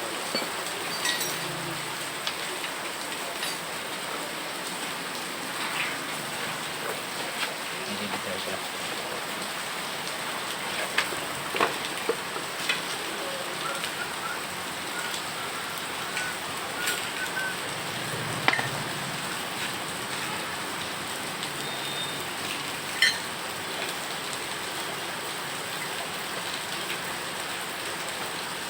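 Steady hiss of rain falling, with a few short sharp clicks and knocks at irregular moments.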